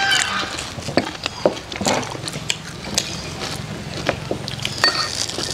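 Spoons clinking and scraping against small ceramic bowls as people eat, a scattering of short, light clicks.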